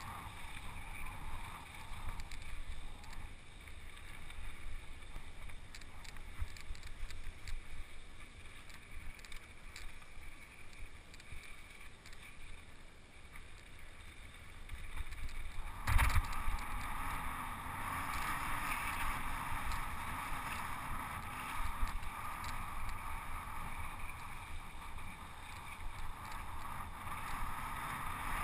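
Wind buffeting the microphone of a camera riding along on a mountain bike, over a low rumble and frequent knocks as the bike rolls over rough dirt singletrack. About sixteen seconds in comes one sharp knock, and after it the wind hiss gets louder as the ride speeds up.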